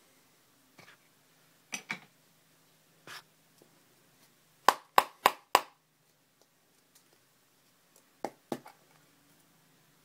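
A series of short, sharp clicks and taps: a couple early, a quick run of four loud ones about halfway through, then two more near the end.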